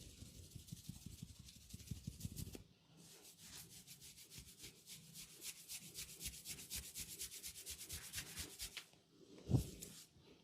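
Faint sound of hands massaging a scalp and hair: a soft rubbing at first, then a long run of quick, even rubbing strokes, several a second. A short thump comes near the end.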